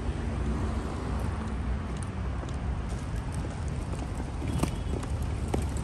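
Busy city street: a steady rumble of traffic, with footsteps clicking on the pavement, a couple of sharper steps near the end.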